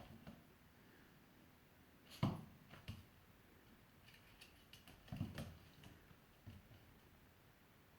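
Quiet room with a few soft thumps and scuffs from the dog and cat moving about: once about two seconds in, and a short cluster around five seconds in.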